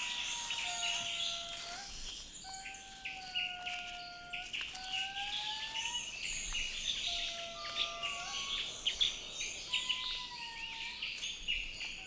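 Rainforest ambience: a series of long whistled notes, each held for a second or two, some gliding up slightly at the end, over a dense chatter of bird chirps and insect ticks.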